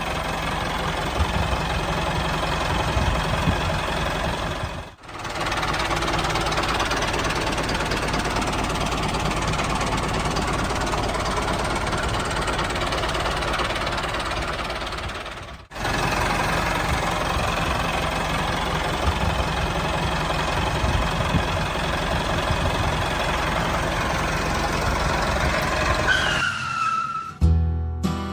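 Tractor engine running steadily at a constant speed, cut off sharply for a moment twice. Near the end there is a short falling tone.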